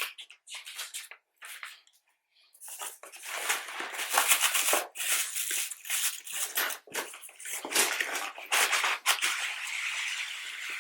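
Packaging rustling and scraping as a boxed product is handled and unpacked, in irregular fits and starts with a short quiet gap about two seconds in.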